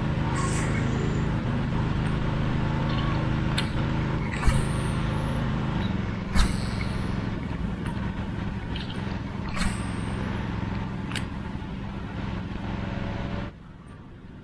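A steady engine drone that cuts off suddenly near the end, with a few sharp clicks over it.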